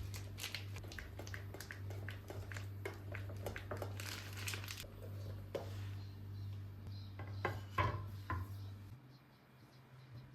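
Kitchen handling sounds: dishes and utensils clinking and knocking, with some rustling, over a steady low hum that stops about nine seconds in.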